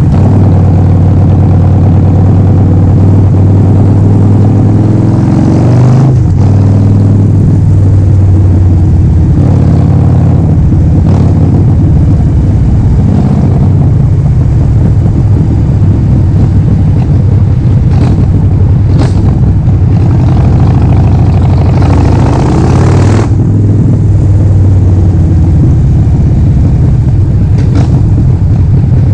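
Harley-Davidson Forty-Eight XL1200X's air-cooled 1200 cc V-twin running loud through a Vance & Hines full exhaust system. The revs climb and drop back twice, about six seconds in and again after about twenty-three seconds.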